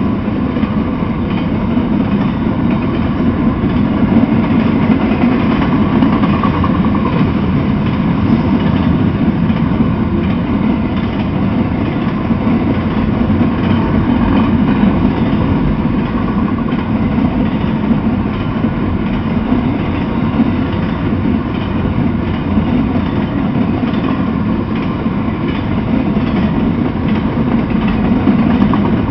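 Freight train of empty intermodal well cars rolling past, a steady loud rumble of steel wheels on the rails.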